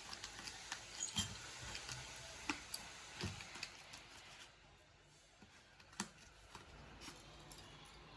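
Small scissors cutting slowly into a cardboard parcel box, a scatter of faint snips and clicks, the sharpest about six seconds in.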